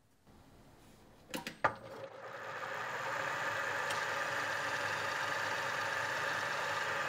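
Mill table power feed (AL310) switched on: a few clicks, then its motor starts a steady whir that builds over about a second and holds, driving the table leadscrew so the handwheel spins.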